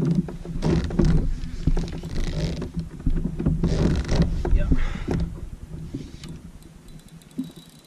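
Gusty wind rumbling on the microphone in several rushing surges, over the sounds of a spinning reel being wound as a hooked fish is played from a kayak. The wind eases about five seconds in.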